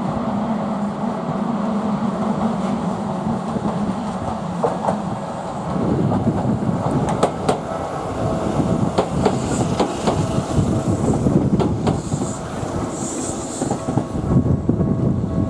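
Yokohama Minatomirai Railway Y000-series electric train running by, first a steady hum, then from about six seconds in a close pass with wheels clicking and rattling over the rail joints. A level-crossing warning bell rings steadily under it.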